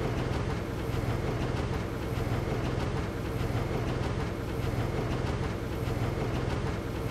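Diesel shunting locomotive's engine running steadily.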